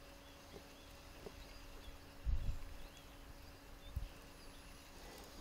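Faint open-air quiet with small birds chirping now and then, and two dull low thumps on the microphone: a louder one about two seconds in and a shorter one about four seconds in.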